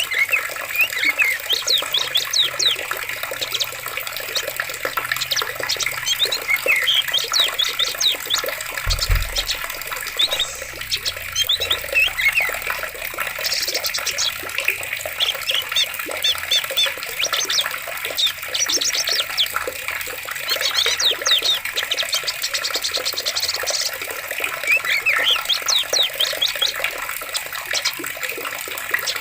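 Flowing water with a steady rush, and small birds chirping in quick repeated bursts over it throughout. A brief low thud about nine seconds in.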